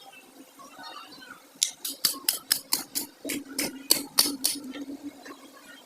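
A quick run of about a dozen sharp taps over three seconds, starting about a second and a half in.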